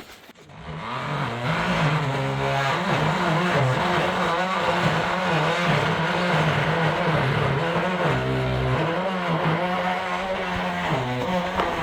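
Chainsaw starting up about half a second in and then running under load as it cuts framing timber, its engine pitch rising and dipping again and again.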